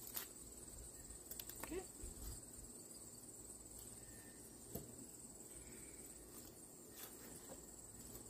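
Faint, steady, high-pitched chirring of crickets, with a few light clicks and taps as a cut section of air-conditioner radiator core is handled.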